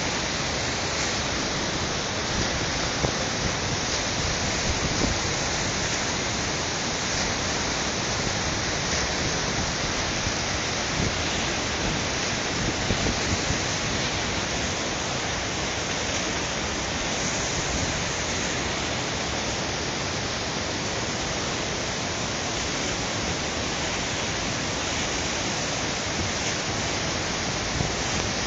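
Water overflowing a dam and cascading down its whole face in white sheets: a steady rushing noise that stays even throughout.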